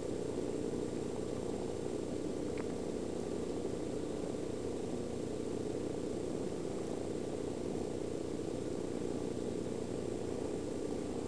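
Domestic cat purring, a steady low rumble that holds even throughout.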